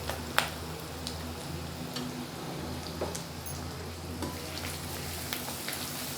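Oil sizzling steadily in a pan as a tempering of mustard seeds, urad dal, crushed ginger and garlic fries, with a few sharp clicks of a spoon against the pan as it is stirred, the loudest about half a second in. A low steady hum sits underneath.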